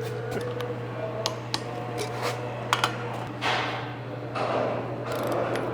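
Wrench work on the pump's tie-rod nuts: sharp metal clinks, with two longer scraping passes, one about three and a half seconds in and one near the end.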